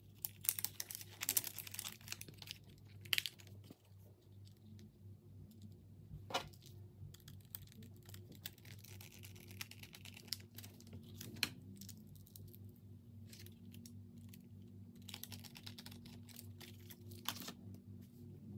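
Close-up handling of a 2.5-inch SSD and its metal drive caddy: crinkling of a foam wrap in the first few seconds and again near the end, with scattered small clicks from screws and the bracket in between.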